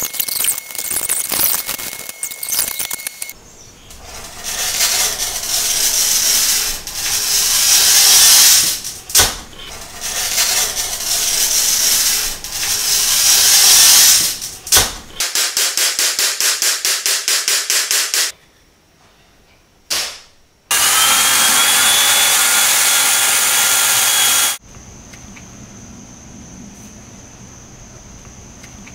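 Hand glass cutter scoring a glass pane against a metal ruler: a series of loud scraping strokes, then a quick even run of short ticks. After a sharp click and a few seconds of steady hiss, a steady high chirring of insects takes over near the end.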